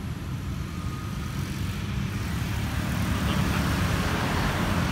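Steady low rumble with hiss, slowly growing louder.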